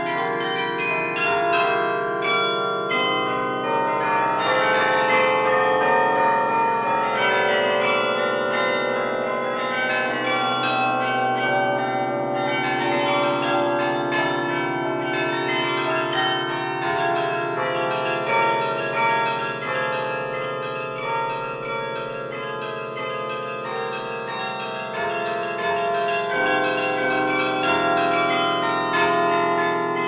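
Hoover Tower carillon played by a carillonneur: a tune on many tuned bronze bells, struck in quick succession, each note ringing on and overlapping the next.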